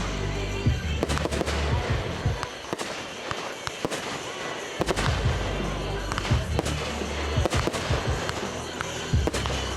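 Fireworks bursting in a rapid series of sharp bangs and crackles, with music playing underneath.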